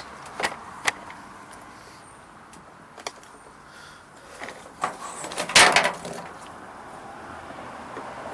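Handling noise: a few sharp clicks and knocks, then a louder burst of rattling clatter about five and a half seconds in.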